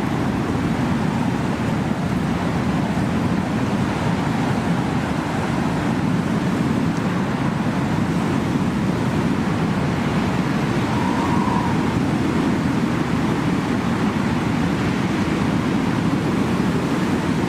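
Blizzard wind blowing steadily with blowing snow: an even, low rush of noise that holds at one level without breaks.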